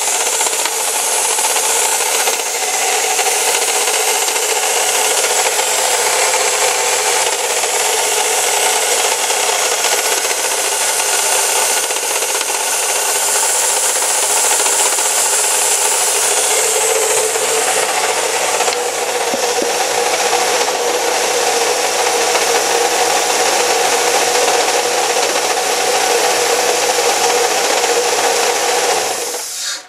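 Chevy Cavalier 2.4L Twin Cam four-cylinder running with a steady grinding, rubbing noise from a bad alternator bearing. The noise cuts off abruptly at the very end.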